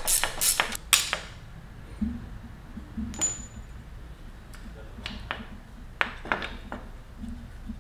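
A hand tool clicking several times in quick succession as the rear brake caliper's pad-retaining pin is unscrewed, then light metal clinks and a brief ping from about three seconds in as the loosened pin and caliper parts are handled.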